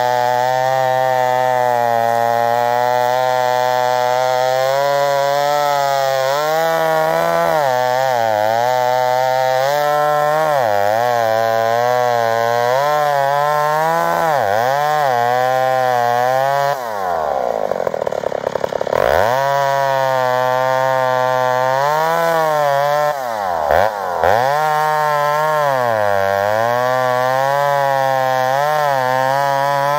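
McCulloch Super 55 two-stroke chainsaw, about 83 cc, running hard in a cut through grand fir, its pitch wavering up and down as it labours. A little past halfway the revs drop sharply and climb back about two seconds later. They dip briefly once more near the end.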